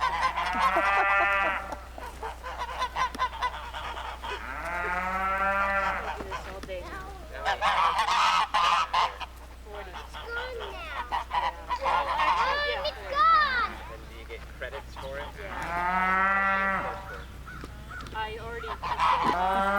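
Geese honking: about six drawn-out calls, each a second or longer, a few seconds apart.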